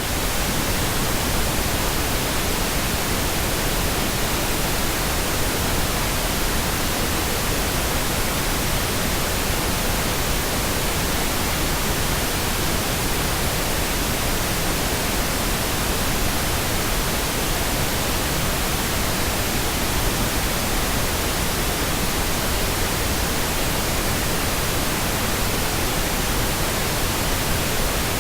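Pink noise: a steady, even hiss spread across all pitches, held at a constant level.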